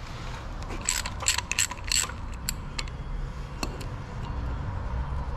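Socket ratchet wrench clicking in short runs, a metallic click-click with a light ring, as an oil drain plug is turned out to drain the gear oil.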